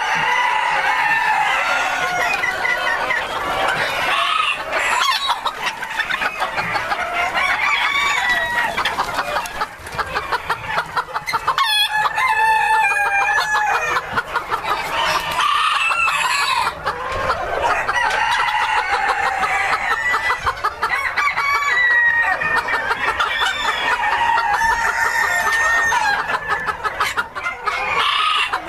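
A flock of Crele Old English Game bantam chickens clucking and cackling continuously, many birds overlapping, with roosters crowing at times.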